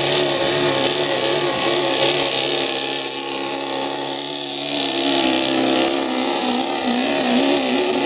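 Diesel pickup truck engine running hard under full load while pulling a weight-transfer sled, its pitch wavering up and down the whole time.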